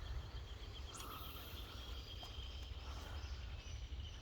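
Faint outdoor ambience: insects trilling on one steady high note, over a low rumble that sounds like wind on the microphone. A brief soft hiss about a second in.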